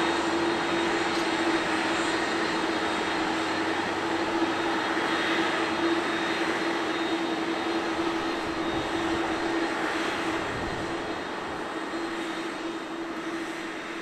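Airbus A330-302's General Electric CF6-80E1 turbofans at taxi idle: a steady jet roar with a constant droning tone in it, fading somewhat toward the end.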